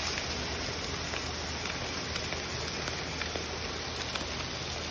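Trout fillets frying skin-down in butter in a hot cast-iron skillet: a steady sizzling hiss with scattered small pops.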